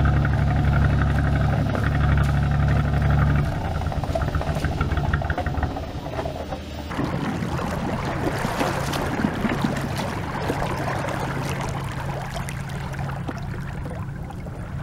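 A sailboat's inboard engine running at a steady idle, heard at the stern over its wet exhaust outlet, with water splashing. The steady hum weakens about three seconds in. After about seven seconds it gives way to a steady rush of wind and water as the boat moves under sail.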